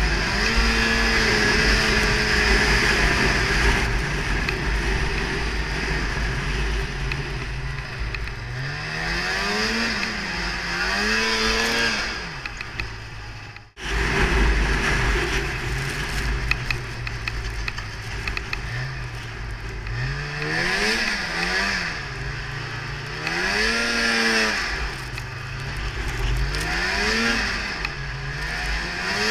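Polaris Indy Trail 500 snowmobile's two-stroke engine running under throttle, its pitch rising and falling several times as the rider speeds up and eases off, with wind buffeting the helmet-mounted microphone. The sound cuts out for a moment about halfway through.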